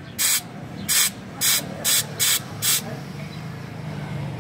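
Compressed air venting from a pneumatic tractor-tyre press (HTP 1628) in six short, sharp hisses about half a second apart, as its air valve is worked to drive the ram against the tyre bead. The hisses stop about three seconds in, leaving a steady low hum.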